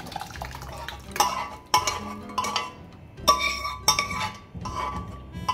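A pressure cooker clinking and knocking against the rim of a saucepan as cooked dal is poured from it: about half a dozen sharp metallic clinks, each with a brief ring.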